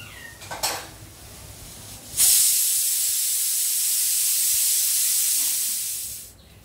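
A loud, steady hiss that starts suddenly a couple of seconds in, holds for about four seconds and then dies away.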